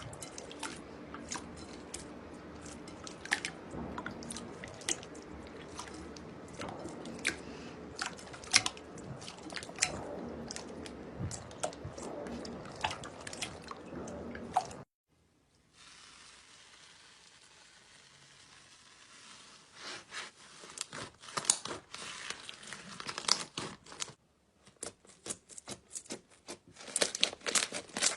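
Slime being squeezed, poked and stretched by hand, giving many sharp sticky clicks and pops over a soft wet squishing. It cuts off suddenly about halfway, comes back fainter, drops out again briefly, then returns busier near the end.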